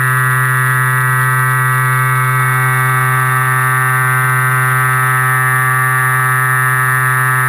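Electric motor and propeller of an FPV model plane in flight, heard through the onboard recording as a loud, steady drone with many overtones and a constant pitch.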